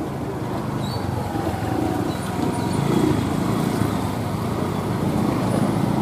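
Road traffic, with motorcycle and car engines running and passing in a steady, continuous mix of noise.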